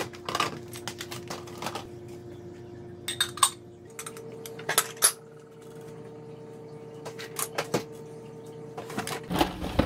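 Clean dishes being handled and put away: plastic food containers and glassware knock and clink in scattered sharp clicks, with the light metallic clink of a canning lid. A steady hum runs underneath and steps up in pitch about four seconds in.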